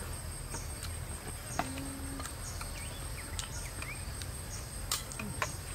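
Spoons clinking now and then against plates and bowls as people eat, a few separate light clicks, with a brief low hum about a second and a half in over a steady low background rumble.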